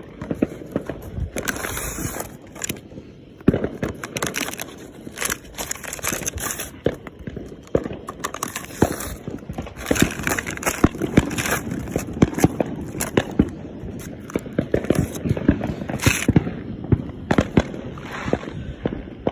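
Fireworks going off, a dense, irregular run of sharp pops and crackles.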